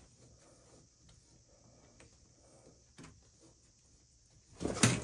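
Hands working a copper water pipe and its shutoff valve: a few faint clicks, then loud knocking and rattling of metal near the end.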